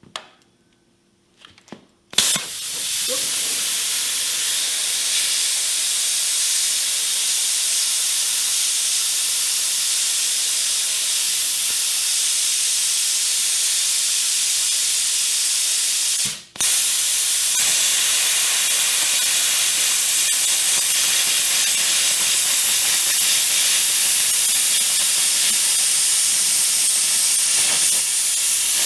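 Plasma torch cutting through plate: a loud, steady hiss that starts suddenly about two seconds in, stops for a moment about halfway through and starts again.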